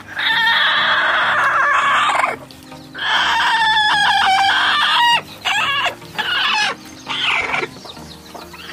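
Broody hen sitting on eggs, giving loud harsh squawks as a hand reaches under her: two long calls of about two seconds each, then a few shorter ones.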